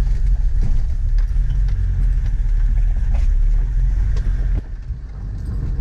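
A 4x4's engine running at low speed, heard from inside the cabin as a steady low drone, with scattered knocks and rattles as it jolts along a rough dirt track. The drone dips briefly about four and a half seconds in, then picks up again.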